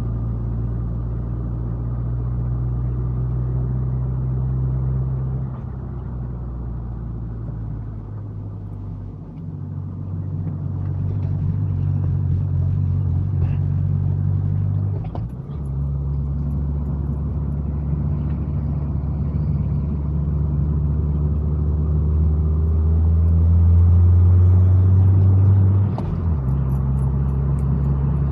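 Car driving up a long climb: a steady low engine and road drone whose pitch steps up or down several times, about 5, 9, 15 and 26 seconds in.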